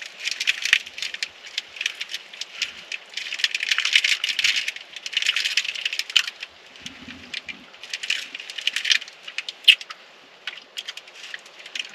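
Plastic food wrapper crinkling and crackling in irregular bursts as it is handled, with a short lull near the end.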